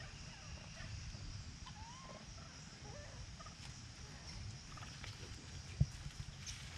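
Outdoor ambience: a steady high hum and low rumble with a few faint short chirps, and one sharp low thump about six seconds in.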